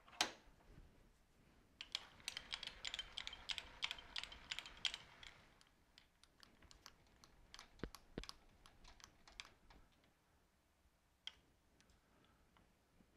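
Small metal clicks and taps from handling tooling at a stopped lathe's tool post. A quick flurry of clicks lasts a few seconds, then scattered taps and a couple of dull knocks follow.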